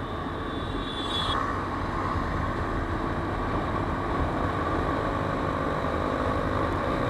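Motorcycle running steadily at about 80 km/h cruising speed, its engine and the rush of wind and road heard from a camera mounted on the bike.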